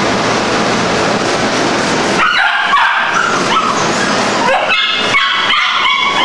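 Dogs barking and yipping, with short high-pitched yips starting about two seconds in and several more in quick succession near the end, over a steady background din.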